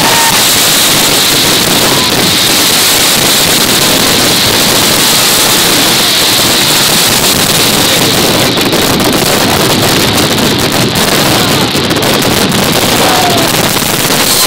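Dense fireworks barrage: many crackling star shells bursting at once, heard as one loud, continuous crackling roar.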